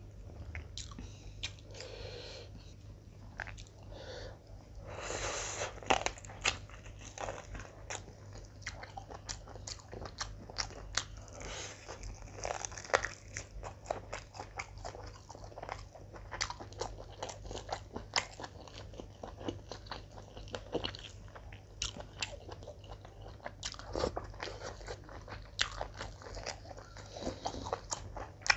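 Close-up mouth sounds of a person chewing mouthfuls of mutton dum biryani eaten by hand: wet chewing with many short smacking clicks throughout.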